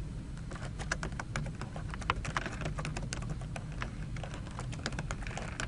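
Typing on a computer keyboard: a quick, irregular run of key clicks as a name is entered.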